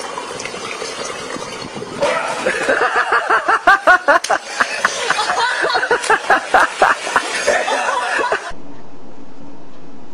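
A person laughing hard in quick, pulsing bursts, starting about two seconds in. Near the end it cuts off abruptly to a steady hiss.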